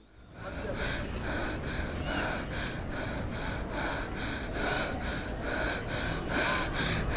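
A woman panting hard and out of breath after running, quick breaths about three a second, over a low background rumble.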